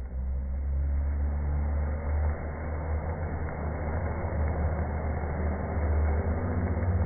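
Large flame flaring up off a hibachi teppanyaki grill: a steady low rushing noise that grows louder as the fire builds.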